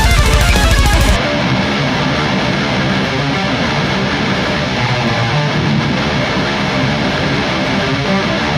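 BC Rich Warlock electric guitar being played in a metal tone test. About a second in, the full band backing, with its deep bass and high cymbal-like hiss, cuts out, and the guitar carries on alone.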